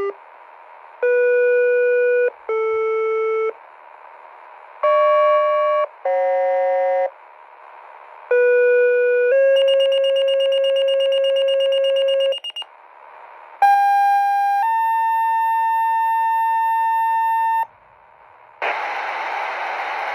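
Sequential two-tone radio paging tones from a Zetron Model 25 encoder, heard over a GMRS radio channel. First come pairs of steady tones about a second each, then two Quik-Call II sequences of a one-second tone followed by a three-second tone, the tone codes that set off pagers and sirens. A burst of radio static hiss comes in near the end.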